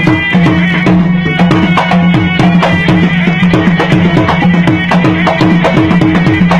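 Gendang silat music: a pair of gendang drums beaten in quick interlocking strokes, with a serunai melody above and a steady gong tone underneath.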